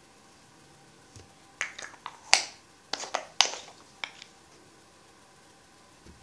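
About ten sharp plastic clicks and taps over three seconds from a small plastic cosmetics jar being handled, the loudest two about a second apart.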